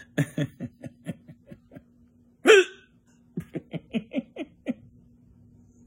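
A person laughing in quick short bursts, broken by one loud voiced hiccup about two and a half seconds in; the hiccups have not stopped.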